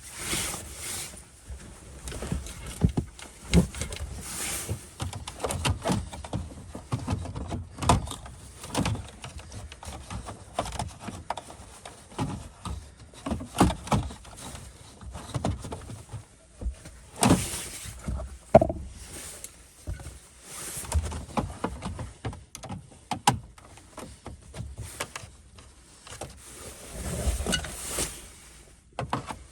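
Irregular knocks, clicks and scraping of hands and tools working at a car dashboard's radio opening, with hard plastic and metal parts being prodded and pried.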